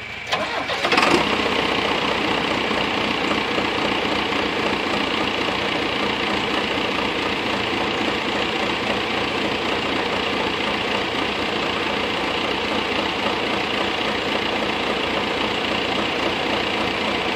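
A diesel tractor engine starts up about a second in and runs steadily at a raised speed, easing back down near the end.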